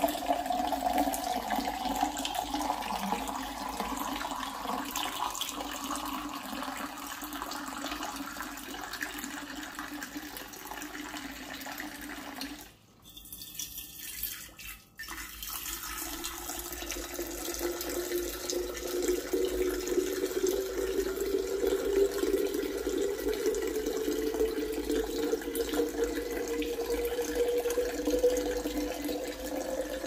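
A thin stream of water pouring into a glass jug, the splashing note rising slowly in pitch as the jug fills. The pour stops briefly a little before halfway, then starts again at a lower pitch and rises again.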